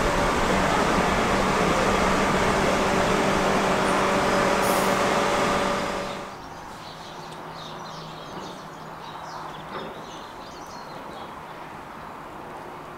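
Southeastern Class 377 Electrostar electric multiple unit moving through the platform, a loud rumble of wheels with a steady electric hum from its traction equipment. About six seconds in the sound drops sharply to a much quieter scene: a Class 700 train approaching from a distance.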